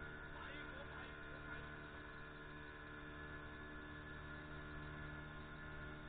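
Faint steady hum made of several fixed tones, heavily muffled.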